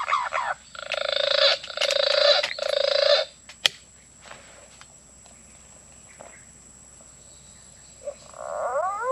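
An animal calls three times in a row, harsh, evenly spaced notes, then a single sharp click about a second later. A rising call starts near the end.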